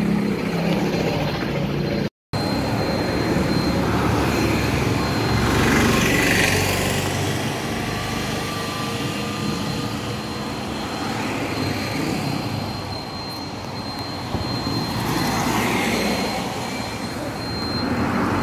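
Street traffic: a steady din of cars and motorcycles on a town road, with a vehicle passing close about six seconds in and another near the end. The sound cuts out briefly about two seconds in.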